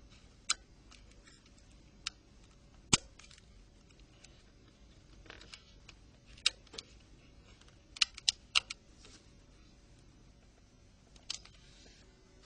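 Sharp clicks and taps of small plastic and metal parts of a Nokia 6600 handset being handled and fitted, about nine in all at irregular intervals. The loudest comes about three seconds in, and a quick cluster of three follows around eight seconds.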